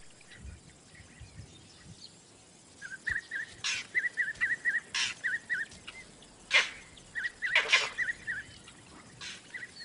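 Vervet monkey alarm calls, warning of an approaching predator. They come as two bouts of rapid short chirps, about five or six a second, broken by several loud, sharp calls, the loudest in the second half.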